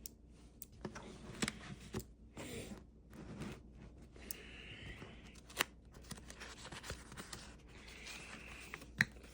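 Paper pages of a small planner refill being turned and handled: soft rustles and light clicks, with a few brief swishes.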